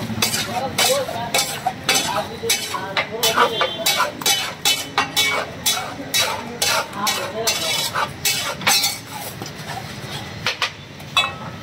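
Metal spatula scraping and clacking against a large flat iron tawa as thick pav bhaji is stirred and spread, in quick repeated strokes of about three a second that thin out near the end.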